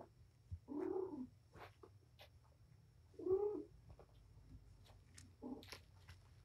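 Cats calling during play: three short pitched calls, about a second in, at about three seconds and a shorter one near five and a half seconds, with faint taps and clicks between them.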